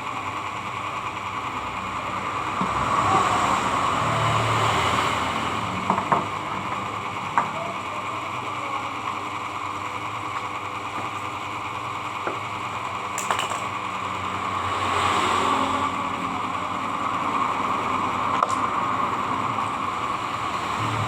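A motor-driven sharpening disc running steadily while a hair-clipper blade of magnetic steel is lapped on its oiled face, the gritty rubbing swelling and fading as the blade is pressed and moved. A few light clicks of the blade against the disc.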